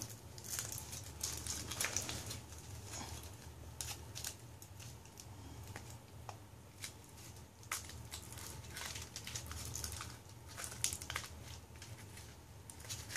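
Faint, irregular crinkling and crackling of a Kinder Surprise egg's foil wrapper and plastic capsule being handled and worked open by small hands.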